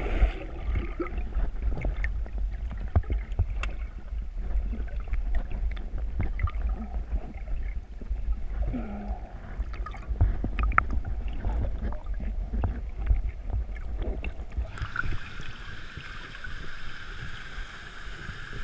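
Water sloshing over a low rumble, with scattered knocks. About fifteen seconds in, a steady hiss of rushing water sets in.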